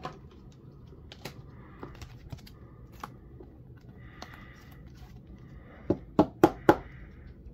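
Light plastic clicks and taps as a sleeved trading card is handled and slid into a rigid clear plastic top loader, with a quick run of four sharper clicks near the end.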